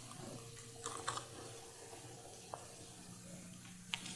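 Paper musket cartridge being torn open with the teeth and handled: faint rustling and a few small clicks, about a second in, midway and again near the end, over a steady low hum.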